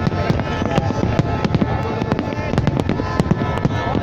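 Fireworks display: a dense, continuous barrage of bangs and crackles in rapid succession.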